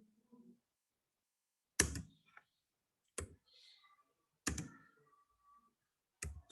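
Four separate sharp clicks or knocks, each about one and a half seconds apart, with near silence between them.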